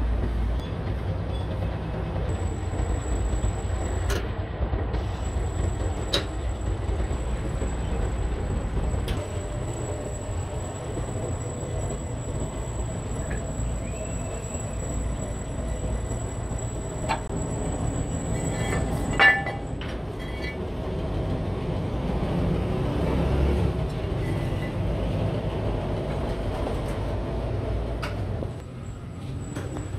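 Hydraulic press running: a steady low mechanical hum from its motor and pump, with a thin high whine over it. A few metallic clicks and one sharp knock about two-thirds of the way through; the hum drops near the end.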